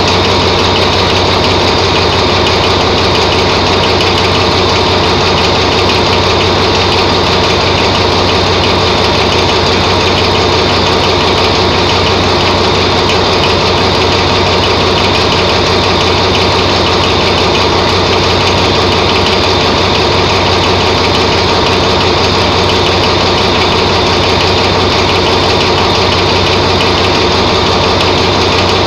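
Diesel railway locomotive standing in a station and idling: a loud, steady engine drone with a constant whine over it, unchanging throughout.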